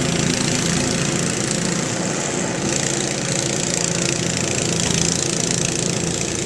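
An engine idling steadily with an even hum.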